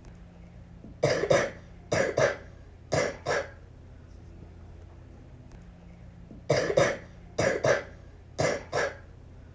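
A little girl coughing with the flu: two fits, each of six coughs in three quick pairs about a second apart, the second fit starting about three seconds after the first ends.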